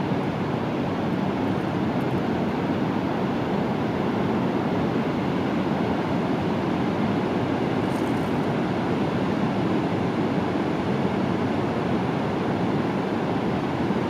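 Heavy ocean surf breaking, a steady low rushing noise of whitewater with no pauses.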